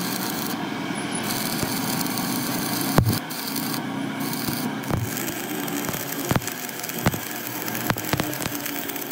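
Stick-welding arc on the steel hub of a tractor bull gear, crackling and sizzling steadily, with a few sharp pops from about three seconds in.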